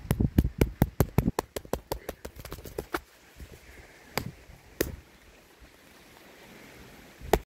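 Handling noise on the recording phone: a rapid run of knocks and taps that thins out after about three seconds, then a few single knocks, over faint rain hiss.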